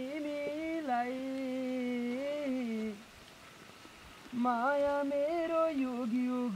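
A person humming a wordless tune in long, slowly sliding notes, breaking off for about a second and a half in the middle before starting again.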